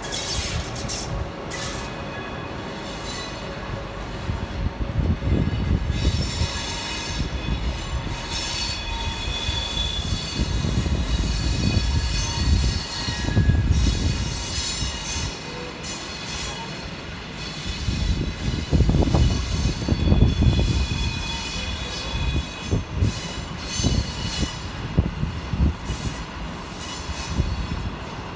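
SJ Rc6 electric locomotive moving a train through the depot tracks, its steel wheels squealing against the rails. Deep rumbling swells several times under the squeal.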